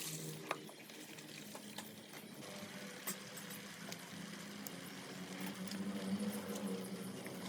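Water running and splashing, as from a hose used to wash down pigs, over a steady low hum with a few light clicks.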